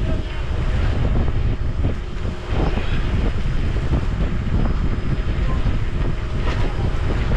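A large engine running steadily with a constant low rumble, and a few short knocks over it.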